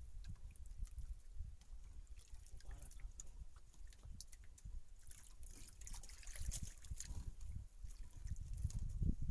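Small splashes and drips of water around a boat, with many short ticks, over a low rumble that swells about six and a half seconds in and again near the end.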